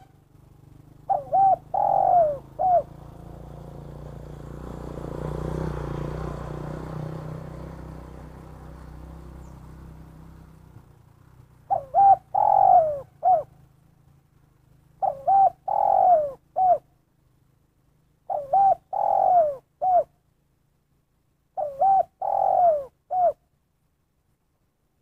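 Spotted dove cooing its 'kuk satu' call five times. Each phrase is a few short coos with a downward-sliding main note, ending on one short closing note. In the first half a low rumbling noise swells and fades.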